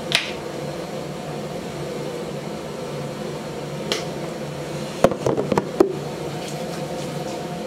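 Steady low machine hum, like a fan. Sharp clicks and taps come from a plastic shampoo bottle being handled: one about four seconds in and a quick cluster about a second later.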